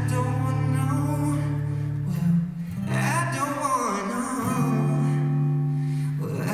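Live acoustic guitar song: strummed chords ringing out under a male voice singing into a microphone.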